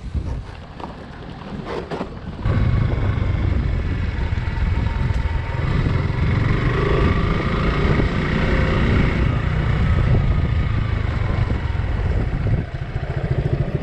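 Suzuki Gixxer 150 motorcycle riding off, its engine running under heavy wind rumble on the microphone. Loud and steady from about two and a half seconds in.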